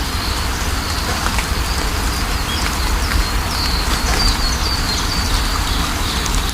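Steady rain falling, with a low rumble underneath and scattered drop ticks. Small birds chirp over it in short, high, repeated notes, most often around the middle.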